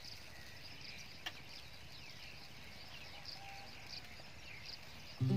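Outdoor ambience of birds chirping with insects calling, the chirps short and repeated, some sweeping downward. There is a single sharp click about a second in, and acoustic guitar music comes in at the very end.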